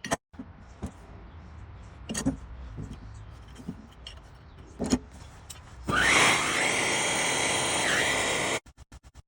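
A few light clicks and knocks, then a power tool's motor whirs loudly with a steady high whine, spinning up at the start. It cuts off sharply after about two and a half seconds, followed by a quick run of clicks.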